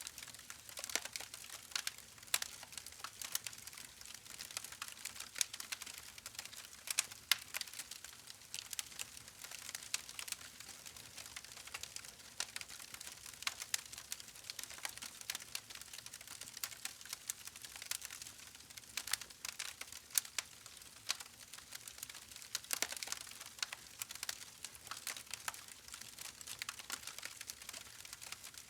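Campfire burning, its wood crackling in quick, irregular sharp snaps over a faint steady hiss.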